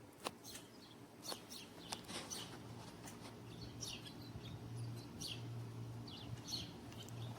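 Small birds chirping in short, repeated calls, over a steady low hum.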